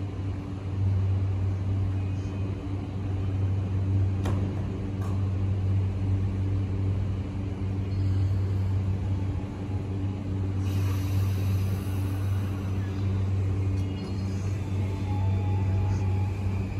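JR E235-1000 series electric commuter train standing at the platform with a steady low hum from its onboard equipment, then starting to pull away near the end.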